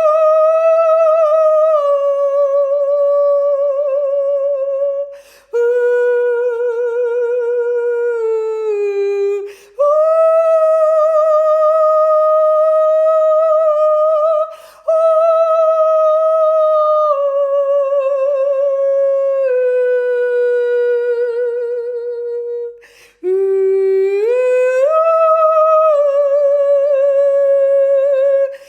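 Unaccompanied wordless singing by a single high voice: long held notes with vibrato, sliding slowly from pitch to pitch. Quick breaths break the phrases four times.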